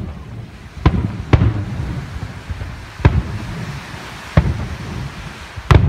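Aerial fireworks shells bursting: five sharp booms, two close together about a second in, then three more spaced a second or more apart, with a low rumble carrying on between them.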